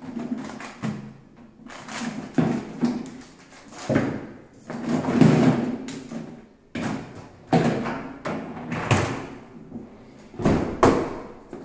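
Wire racks of a dishwasher rattling and rolling on their rails, with clattering knocks as items are pulled out of them. Near the end the door is swung shut with a thump.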